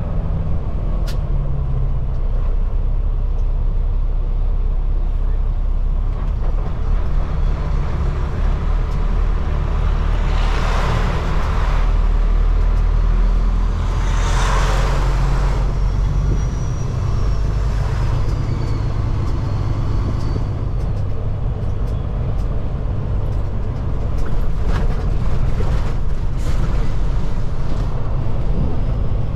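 Semi truck's diesel engine running under way, a steady deep drone whose pitch steps up and down several times. Two rushing hisses come about ten and fourteen seconds in.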